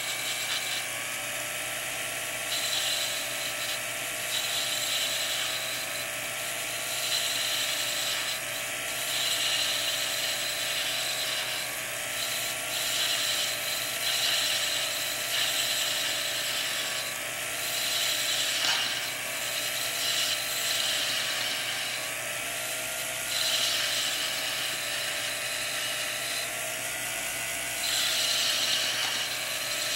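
Jeweler's lathe motor running with a steady hum that wavers slightly in pitch, while a hand graver cuts the end of a spinning brass rod. Each cutting pass is a hissing scrape lasting a second or two, and the passes come again and again.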